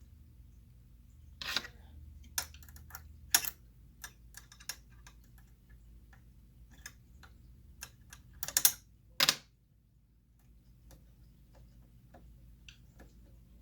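Scattered clicks and taps of small metal parts and a screwdriver being handled as a sewing machine is taken apart, with a few sharper knocks among them. A faint low hum runs underneath.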